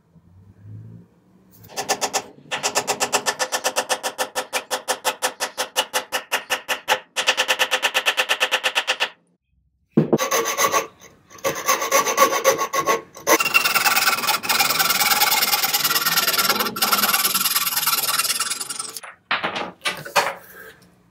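Hand saw cutting off a glued wooden dowel flush with a chair leg's corner block: a long stretch of continuous rasping sawing with a thin squeal from the blade, in the second half. Before it comes a run of quick, even strokes on the dowel for about seven seconds.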